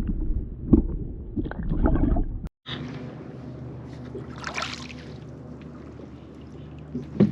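Small boat on the water: water lapping and knocks from handling gear in the boat, with a steady low hum behind them and a brief splashy burst around the middle.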